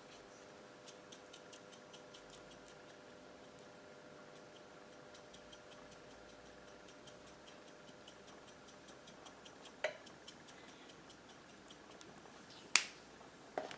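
Faint, even ticking about three times a second over a low steady hum, with a couple of sharper clicks near the end.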